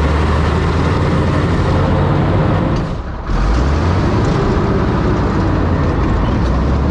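The seven-cylinder Continental W670-9A radial engine of an M3A1 Stuart light tank running loudly as the tank drives; the engine is a new-old-stock unit on its first test drive. The sound dips briefly about three seconds in, then carries on steadily.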